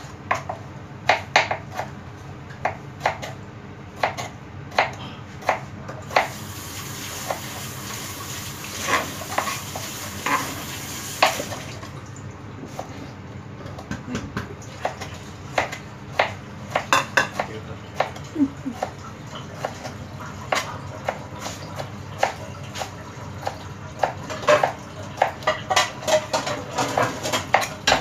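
Kitchen knife slicing tomatoes on a plastic cutting board, the blade knocking the board in irregular taps and short runs, over a steady background hiss.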